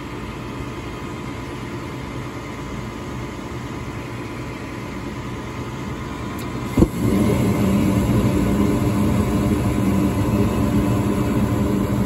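Gas furnace running through ignition: a steady hum of the draft inducer while the hot surface igniter heats. About seven seconds in, the gas valve opens and the burners light with a sudden thump, then burn with a louder, steady rumble. The furnace keeps dropping its flame, which the technician suspects is a crusty flame sensor.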